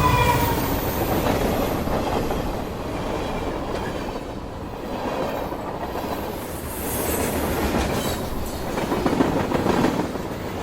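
High-speed train running, a steady rush of wheel and air noise, with a faint whine that falls slightly in pitch during the first second.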